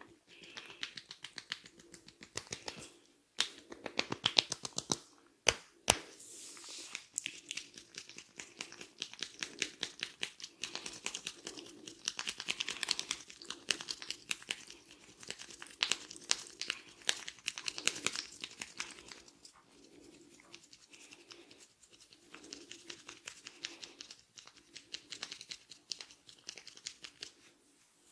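Hands massaging the head and hair close to the microphone during a barber's head massage: a dense run of quick small clicks and rustles, with a few sharper single clicks in the first six seconds.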